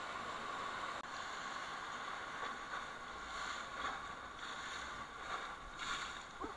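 Rushing whitewater and spray splashing against an inflatable raft running rapids, a steady rush that swells and falls. There is a brief drop-out about a second in.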